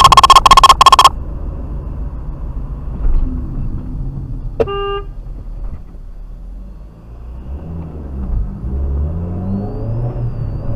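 Music cuts off about a second in, leaving the low rumble of a car's engine and tyres heard from inside the cabin. A car horn toots once, briefly, near the middle. Near the end the engine note rises and falls as the car speeds up.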